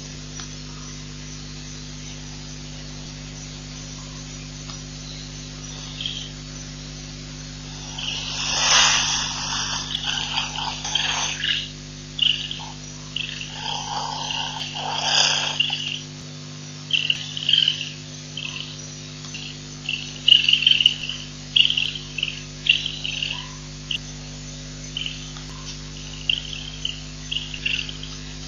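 Irregular series of short, high-pitched animal calls beginning about eight seconds in, with two louder, noisier spells near the start of the calling, over a steady electrical hum from the live-stream audio feed.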